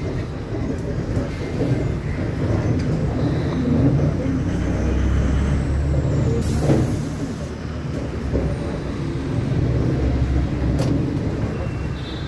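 Bus running along a city street, heard from inside the cabin as a steady low engine and road noise. About six and a half seconds in there is a short hiss of about a second, typical of the air brakes.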